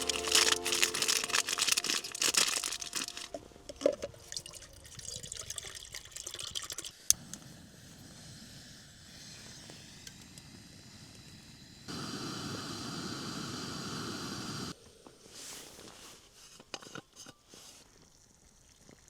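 Camp meal preparation: crinkling and rustling of packaging and gear with small clicks, then about twelve seconds in a steady rush of water pouring for about three seconds that starts and stops sharply.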